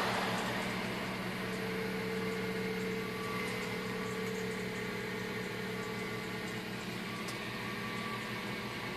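A 2005 Mazda3 1.6 engine idling steadily after a cold start, with a rough rasp that fades out in the first second. The owner hears this strange noise only on cold starts and cannot find its source; a rattling heat shield is the suspect.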